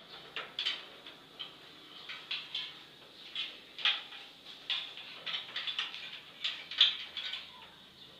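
Electrical wire being pulled by hand through plastic conduit and a junction box: irregular clicks, ticks and short scrapes of the wire rubbing and catching as it is fed through.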